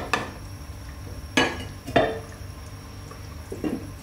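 Wooden spoon stirring stew in a clay pot, with two sharp knocks of wood on clay about halfway through. Softer clattering comes near the end as the clay lid goes onto the pot.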